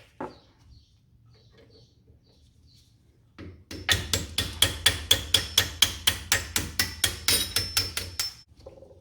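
A hammer striking a metal pin in a rapid, even series of about twenty ringing metallic taps, about four a second, beginning a little past the middle: tapping out the brake caliper's pad retaining pin.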